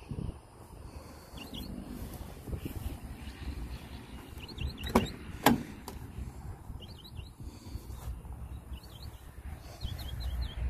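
Small birds chirping in quick groups of short notes over a low rumble on the microphone. About five seconds in come two sharp clicks half a second apart as the Honda Acty's driver door is unlatched and opened.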